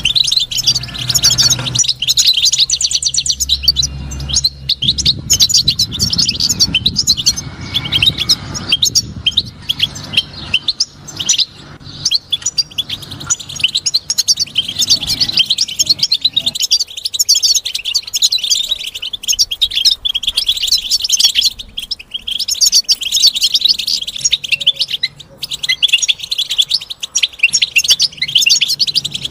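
European goldfinch song: a continuous, rapid run of high chirps and twitters with only brief pauses. A low rumble sits underneath during roughly the first third.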